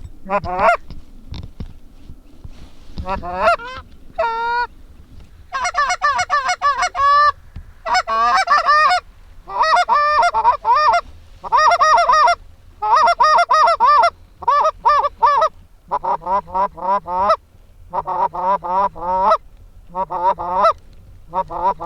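Goose honking and clucking: rapid runs of short, loud calls in bunches with brief gaps. A few scattered calls come at first, and the calling becomes nearly continuous from about five seconds in.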